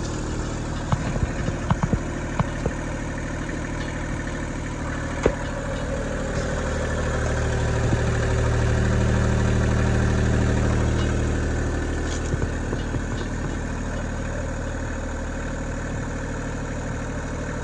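Kubota L2050 compact tractor's diesel engine idling steadily, growing louder for a few seconds midway.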